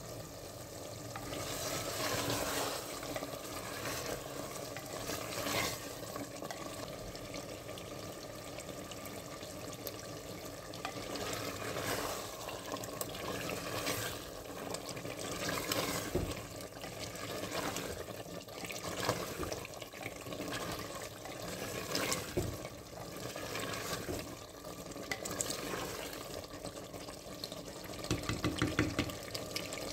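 Chicken korma gravy sizzling in a clay matka as it is stirred with a spatula, with repeated knocks and scrapes of the spatula against the clay pot.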